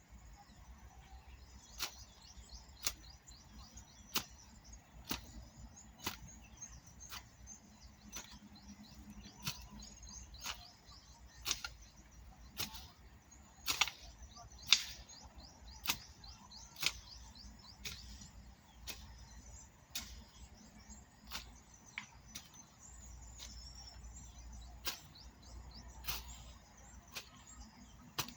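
Hand hoe chopping into soil in steady strokes, a sharp strike about once a second, as cassava rows are cultivated. Faint birds and insects chirp underneath.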